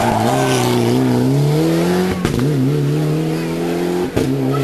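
Rally car engine accelerating hard away out of a hairpin, its pitch climbing. It changes up twice, about two seconds apart, with a short crack at each gear change.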